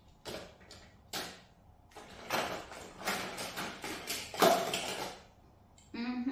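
Small toy cars clattering against one another and a plastic storage bin as a hand rummages through them: a few separate clicks, then a couple of seconds of dense rattling, loudest about four and a half seconds in.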